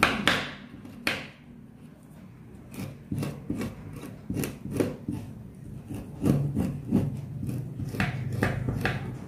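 A hand-held coconut scraper's serrated metal blade scraping the white pith off orange peel in quick repeated rasping strokes, about two or three a second, with a short pause about a second in.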